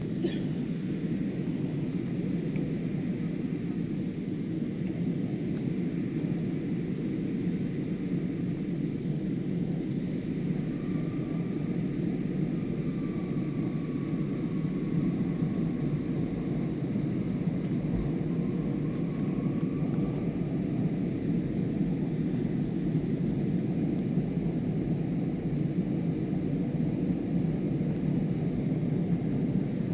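Steady low rumble of a moving vehicle, with a faint steady hum.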